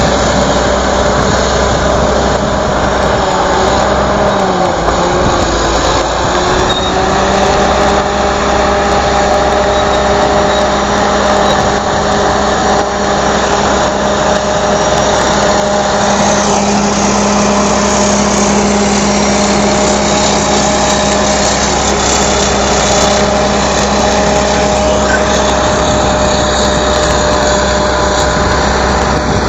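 Caterpillar D8H bulldozer's six-cylinder diesel engine running steadily under load. Its pitch dips briefly about four seconds in, then recovers and holds.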